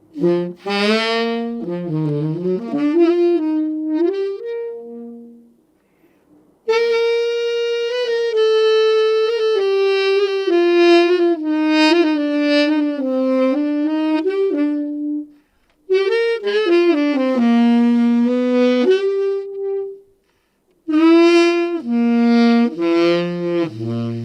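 Solo tenor saxophone played on a J&B Custom Cougar I 6* mouthpiece with a Legere American Cut synthetic reed: an unaccompanied melody in four phrases, with short breaks between them.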